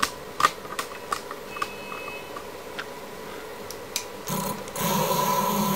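A series of irregular clicks and one short beep, then about four seconds in the CNC router's stepper motors start driving an axis with a steady whine that grows louder half a second later.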